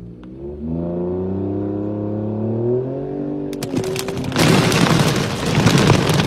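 Ford pickup truck engine revving, its pitch climbing over about three seconds. Then the truck's spinning wheels fling mud in a loud, dense spray of noise.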